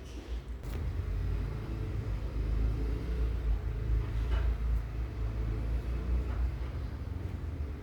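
Steady low rumble, a little louder in the middle, with a few faint light clicks.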